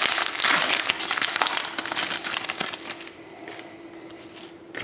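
Trading-card pack wrapper being torn open and crinkled by hand. The crackling is dense and loud for about the first three seconds, then thins to lighter, scattered rustles.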